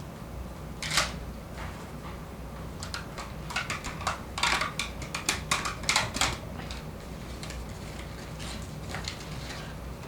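Packaging being handled and unwrapped from a small potted plant: a run of short crinkles and clicks, busiest from about three to six seconds in, then fading to a few faint rustles.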